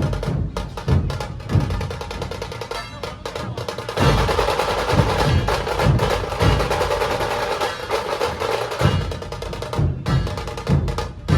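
Dhol tasha ensemble drumming: deep dhol strokes under the fast, rolling beat of tasha drums. The dhol strokes thin out for a couple of seconds, then the full group comes back in louder about four seconds in.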